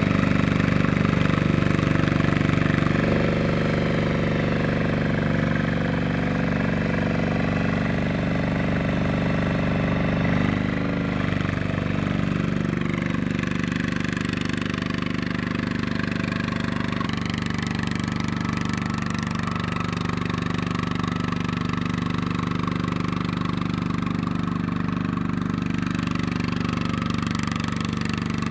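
Single-cylinder diesel engine of a two-wheel walking tractor running steadily and knocking under load as it hauls a trailer through mud, with its pitch wavering briefly about ten seconds in.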